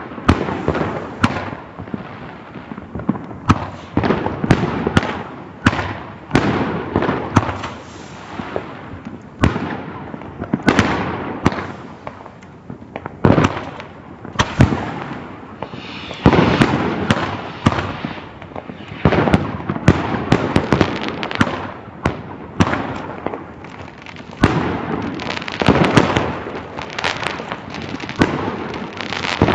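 Fireworks going off in a continuous barrage: many sharp bangs, several a second, over hissing and crackling that never stops.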